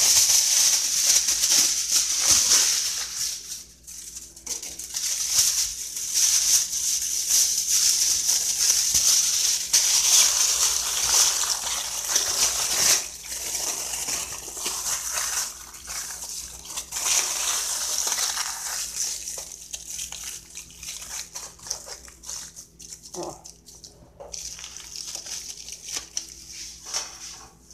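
Aluminium foil crackling and crinkling as it is pulled from the roll and crumpled and folded around a cut of seasoned beef. The crackling is dense and irregular, and it grows softer in the last third.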